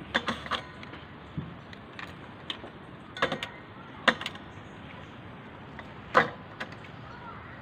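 A metal cup and metal tongs clinking and knocking against a stainless steel cooking pot. The sharp clicks come scattered and irregular, the loudest about six seconds in.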